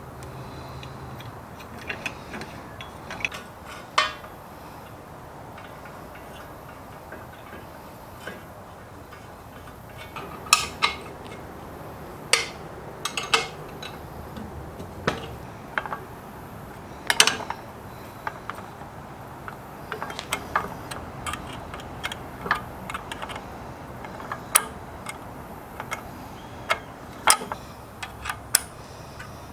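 Irregular sharp clicks and clinks of metal parts and hand tools being handled, sparse at first and more frequent after about ten seconds, over a steady low background.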